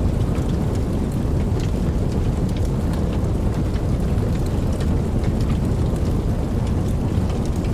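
Steady rain with scattered sharp drop ticks over a deep, continuous low rumble of distant thunder.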